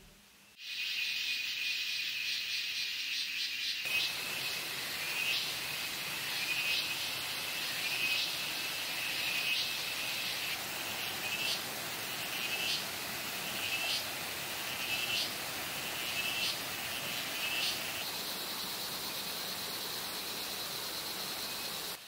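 Forest insects calling: a steady high drone with a short chirp repeating about every second and a half, over a steady hiss that comes in about four seconds in. Near the end the repeated chirps stop and only the steady high drone and hiss remain.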